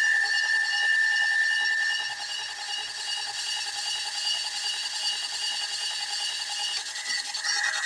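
Small metal lathe running under power feed, its gear train whining steadily while the tool cuts S7 tool steel. A high ringing tone from the cut fades out about two seconds in.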